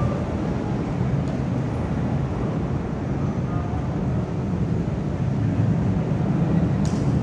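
Steady low rumble of road traffic, with a single sharp click near the end.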